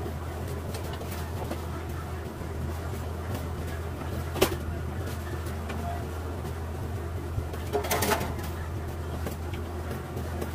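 Open gas burner running steadily under a naan on a wire grate, with a sharp metal clink about four seconds in and a short clatter of knocks near eight seconds.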